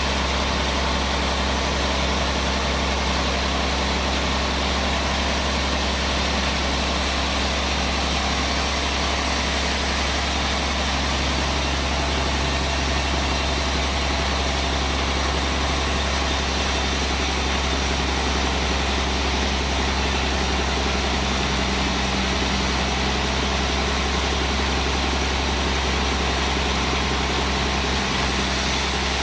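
Band sawmill machinery running steadily: a low, even drone with a hiss over it.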